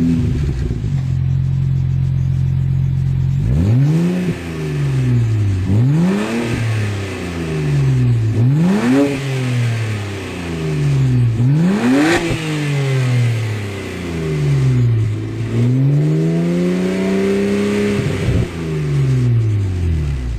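BMW 135i's turbocharged 3.0-litre inline-six through an aftermarket Berk Technology exhaust, idling and then revved: four quick revs rise and fall back to idle, then one longer rev is held near the end before it drops back to idle.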